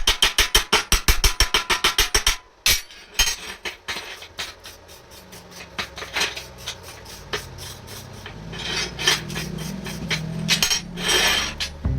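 Rapid, even metal hammering, about six or seven blows a second, that stops a little over two seconds in, followed by scattered clinks and knocks of metal parts being handled.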